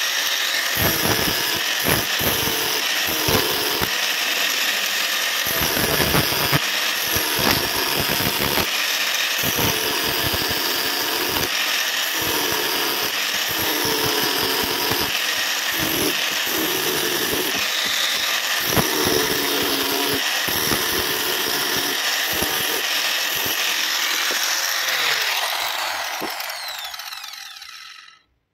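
Angle grinder grinding down a weld bead on steel rebar, running loud and continuous. Near the end it winds down and stops.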